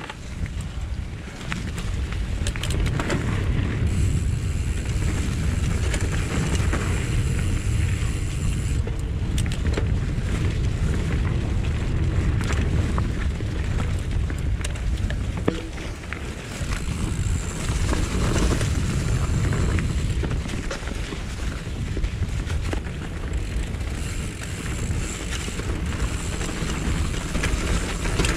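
Wind rumbling on a GoPro's microphone during a mountain-bike ride, with frequent knocks and rattles of the bike running over rough dirt trail.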